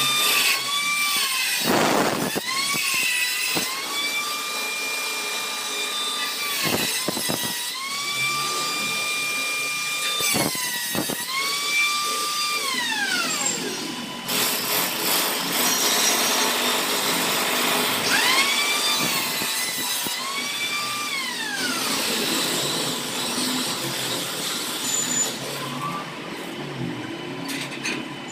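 Handheld angle grinder working steel gate bars: the motor whines at a steady high pitch and is switched on and off several times, the pitch falling each time it spins down. In between come stretches of rough grinding noise from the disc against the steel.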